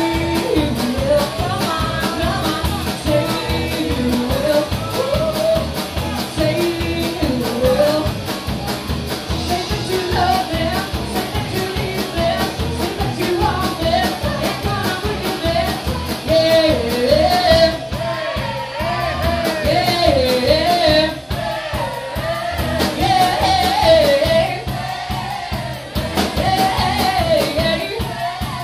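Live rock-and-roll band: a singer's melody over drum kit and guitar, with a steady beat.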